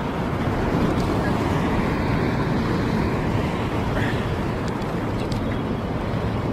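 Ocean surf surging and washing over a rock ledge, mixed with wind buffeting the microphone: a steady rushing noise, heaviest in the low end.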